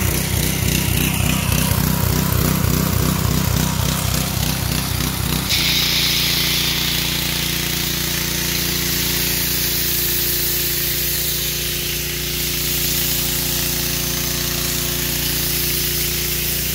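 Ryobi 3200 PSI gas pressure washer engine running, its note pulsing at first; about five and a half seconds in, a steady spray hiss starts as the foam cannon is triggered and the engine settles under load.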